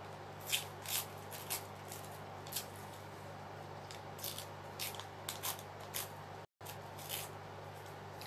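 Scissors cutting paper: a dozen or so short, crisp snips at an uneven pace, over a low steady hum.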